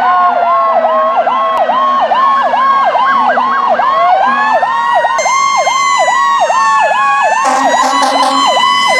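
Fire-truck siren, several siren tones at once: a fast yelp dipping about three times a second over slower wails that fall and rise. It is loud and steady throughout.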